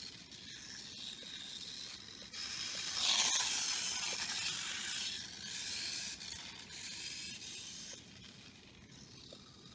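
Wltoys K989 mini RC car running on asphalt: a thin, high hiss of its small electric motor, gears and tyres. It swells about three seconds in and fades as the car moves farther off.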